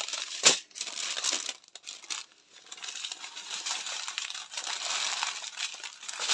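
Small plastic bags of diamond painting drills crinkling and rustling as they are handled and sorted, with one sharp tap about half a second in and a brief lull around two seconds in.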